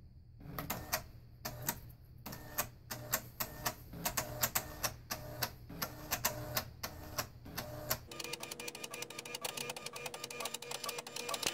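Diconix 150 inkjet printer printing, its print head carriage ticking and clicking in irregular strokes. About eight seconds in, it changes to a fast, dense run of ticking.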